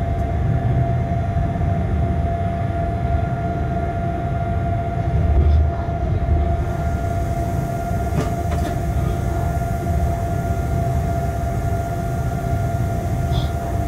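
Inside a locomotive cab running light: a steady low rumble of the loco on the track, with a constant hum and a few faint clicks about eight seconds in.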